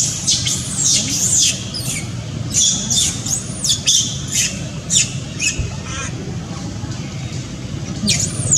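Baby macaque screaming in distress, a rapid run of high-pitched squeals that sweep up and down, the cries of an infant being refused the nipple by its mother. The calls pause for a couple of seconds about six seconds in, then start again near the end.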